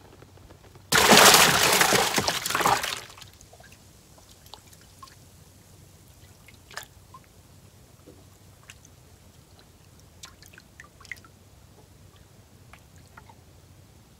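Water splashing and pouring for about two seconds, starting suddenly about a second in, then scattered drips and small ticks.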